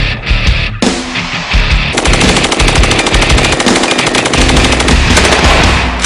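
Rapid rifle gunfire, many shots in quick succession, over loud background music.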